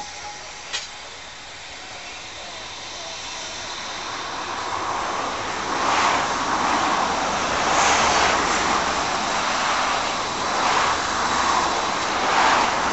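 Narrow-gauge Beyer Peacock 0-6-0 tank steam locomotive approaching at low speed, its exhaust beats growing steadily louder. A single sharp click about a second in.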